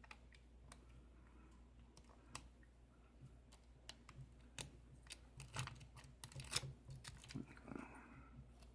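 Faint, irregular clicks and light scrapes of a lock pick and tension wrench working the pins of a Schlage key-in-knob 5-pin lock, being single-pin picked, with a few sharper clicks a little past the middle.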